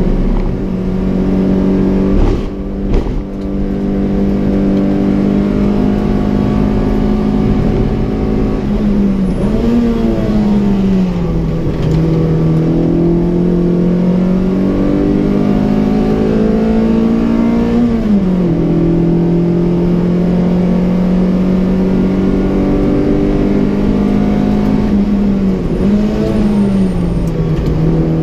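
Peugeot 106 Rallye S1's 1.3-litre eight-valve four-cylinder engine heard from inside the cabin under race driving. The note holds steady, then climbs and drops several times as the car accelerates and slows for corners, with a couple of sharp knocks about two to three seconds in.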